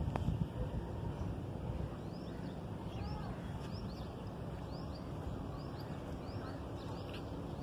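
Wind rumbling on the microphone, with a bird repeating a short high chirp about twice a second.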